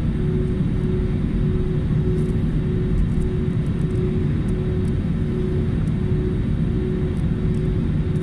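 Cabin noise of a jet airliner taxiing on the ground: a steady low rumble with an even, pulsing hum above it.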